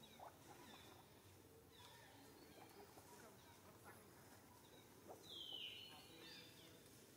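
Near silence: faint outdoor ambience with a few faint high chirps, and one brief high-pitched animal call falling in pitch about five seconds in.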